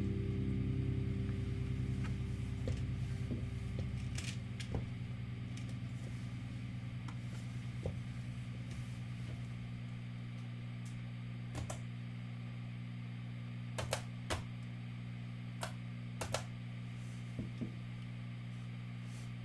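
Steady low electrical hum, with a guitar chord from the music before it dying away over the first few seconds. A few faint clicks fall in the second half.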